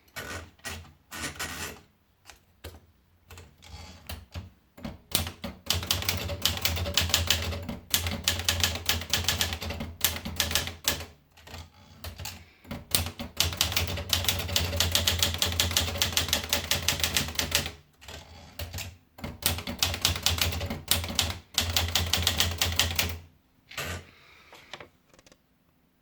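Olivetti Dora manual portable typewriter being typed on: fast runs of key strikes in bursts, broken by short pauses.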